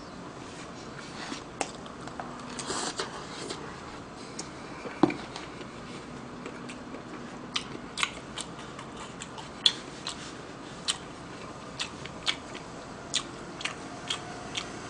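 A person chewing stir-fried pork close to the microphone, with many short wet mouth clicks and smacks, and a single knock about five seconds in.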